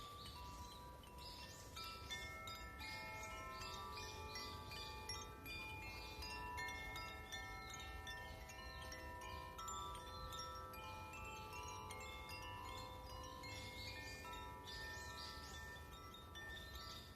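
Chimes ringing in a random, continuous cascade of overlapping sustained notes, with a low steady rumble underneath.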